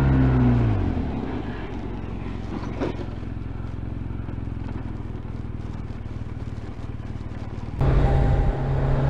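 Motorcycle engine heard from the rider's camera, its note dropping in pitch in the first second as the throttle comes off, then running quietly under road and wind noise. Near the end it cuts abruptly to a louder motorcycle engine holding a steady note.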